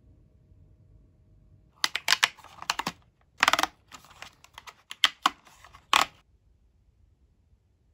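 Paperboard ice-cream box torn open by hand along its perforated edge: a run of short crackling tears and clicks starting about two seconds in and lasting some four seconds.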